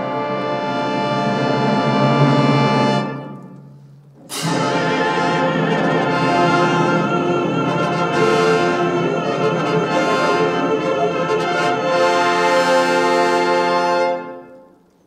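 Symphony orchestra playing a loud passage with prominent brass. The music swells, falls away about three seconds in, then comes back with a sudden loud full-orchestra entry and long held chords, and breaks off near the end.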